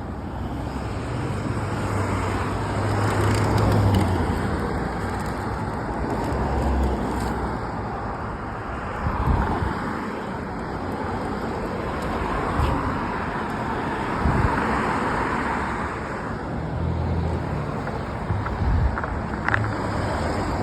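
City road traffic: a steady wash of road noise with cars passing, swelling and fading as vehicles go by.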